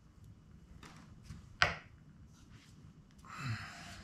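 Quiet handling of firework parts on a towel-covered bench: a few faint ticks, one sharp click about a second and a half in, and a short rustle near the end.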